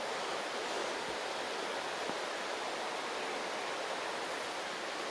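Steady rush of the River Vyrnwy flowing, an even hiss of running water with little low rumble.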